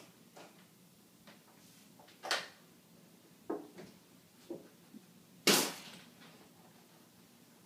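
A mouthful of water spat out in a sudden hissing spray about two-thirds of the way in, fading within half a second. Before it come a few soft knocks and rustles as a plastic gallon jug is handled and drunk from.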